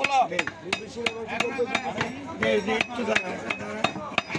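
Large butcher's knife chopping beef on a wooden log block: repeated sharp chops at an uneven pace, a couple a second.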